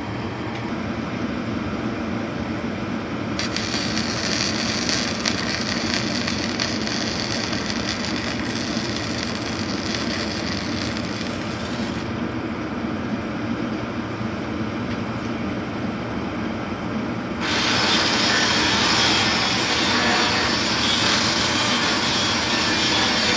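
Metalworking on steel plate over a steady low shop hum, with two long stretches of harsh hiss that switch on and off abruptly: the first starts a few seconds in and stops about halfway, and the second starts about three-quarters of the way through.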